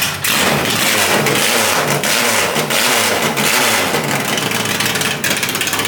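Fiat 133's naturally aspirated engine revving hard and loud, its pitch rising and falling several times in quick blips.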